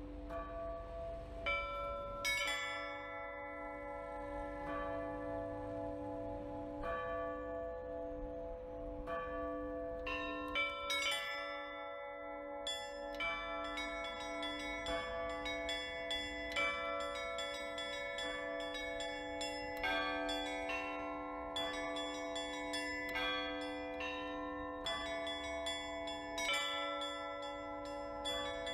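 Russian Orthodox church bells rung in a trezvon: smaller bells struck in quick patterns over the long ringing of the larger bells. The strikes are sparse at first and grow dense from about ten seconds in.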